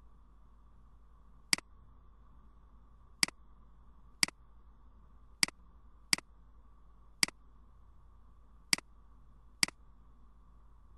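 Eight single computer mouse clicks, sharp and irregularly spaced, over a faint steady hum.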